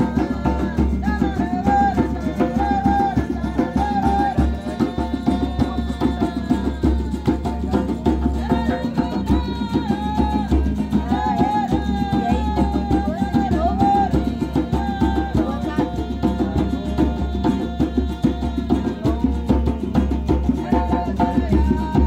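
Hand-drum music: a djembe played in a quick, steady rhythm together with acoustic guitar and a wavering melody line above it.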